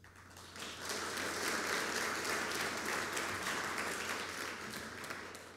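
Audience applauding, building up about half a second in and fading away near the end.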